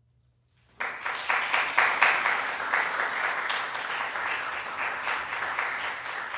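Audience applause breaking out suddenly about a second in after a moment of near silence, then carrying on steadily as many hands clap.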